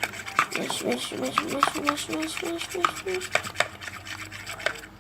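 A spoon stirring and scraping a thick mixture of white glue and water in a small pot, in many quick, uneven scraping strokes.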